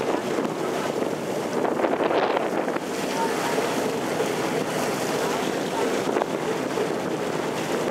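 Motorboat under way: a steady rush of water and engine noise, with wind buffeting the microphone.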